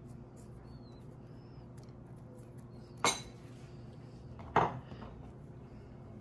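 Two short clinks of a utensil against a serving dish, about a second and a half apart, over a faint steady hum.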